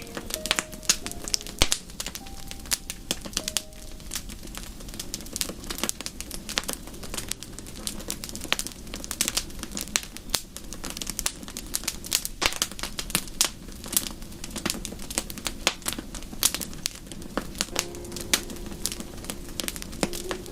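Fireplace wood fire crackling, with dense irregular pops and snaps. A few soft melodic notes sound in the first few seconds and again near the end.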